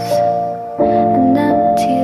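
Background music: gentle sustained chords and melody notes that change every second or so.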